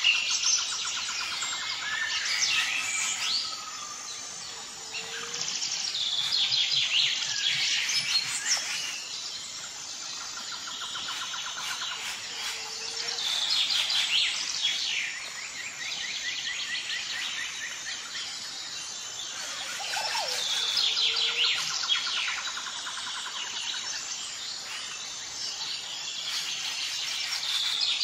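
Birdsong: several birds chirping and trilling with quick repeated notes. The same phrases come back about every eight seconds, like a looped nature-sound track.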